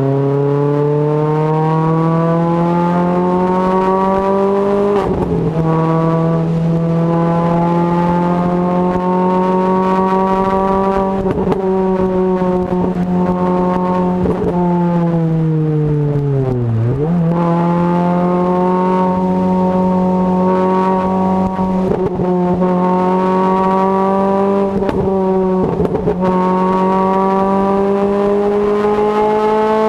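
Renault Clio RS 200's four-cylinder engine through a Supersprint aftermarket exhaust, driven hard: a loud, steady engine note that climbs slowly in pitch and drops briefly at each of several gear changes. About halfway through it falls sharply as the throttle comes off, then picks straight back up.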